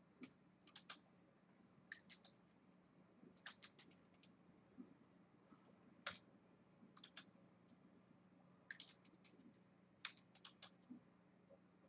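Faint typing on a computer keyboard: short key clicks in small irregular clusters.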